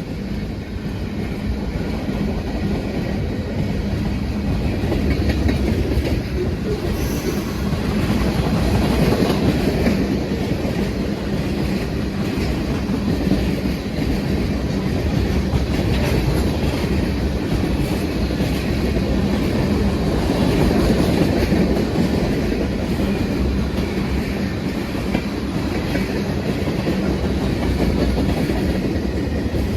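Manifest freight train cars rolling past at speed: a steady, loud rumble of steel wheels on rail, with occasional clicks.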